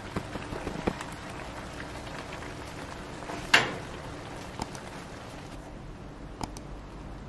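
Thick tteokbokki sauce simmering in a pan, with a steady hiss and small pops as bubbles burst. A sharp click comes about halfway through, and a fainter one near the end.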